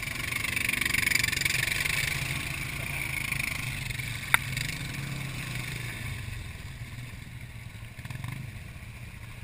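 Off-road vehicle engine running steadily, with a rush of noise that swells in the first couple of seconds and eases off. A single sharp click comes a little past four seconds in.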